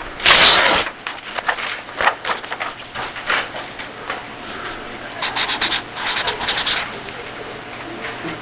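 Scratching and rubbing on a surface: a loud rub just after the start, scattered light clicks, then about five seconds in a quick run of short scratchy strokes lasting nearly two seconds.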